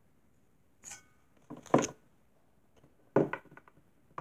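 A few short knocks and rustles from plastic toy figures being handled and moved by hand. They come at about one second in, just before two seconds (the loudest) and just after three seconds, with quiet between.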